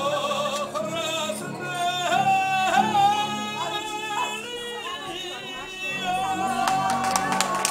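A man singing long, held, wavering notes while accompanying himself on an upright piano. Hand clapping starts near the end.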